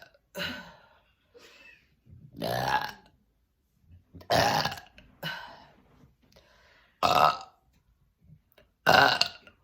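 A woman burping on command, a string of loud, deep burps: four big ones about two seconds apart, with smaller burps between them.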